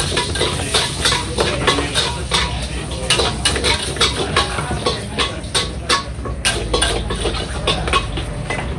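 Metal ladle clanking and scraping against a wok as noodles are stir-fried, with irregular strikes a few times a second. Under it runs a steady low rumble from the gas wok burner.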